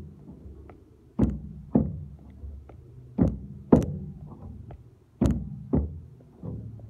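Sneakers landing on and stepping off a perforated metal park bench seat during step-ups: sharp thunks in pairs about half a second apart, a pair every two seconds, six in all.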